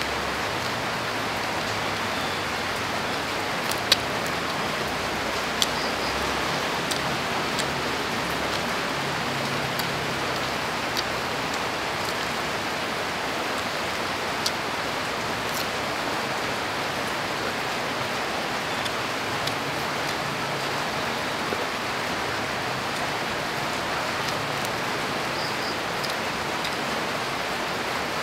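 Steady rain falling, an even hiss, with scattered sharp ticks, the loudest about four and six seconds in.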